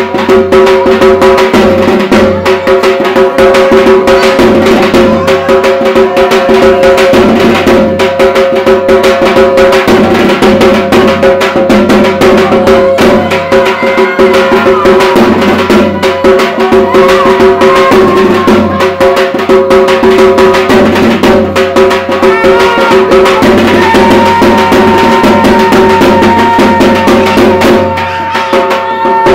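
Puja drumming: fast, continuous drum strikes over steady ringing metal tones, as played for the evening rite of Durga Puja. A higher held tone joins near the end.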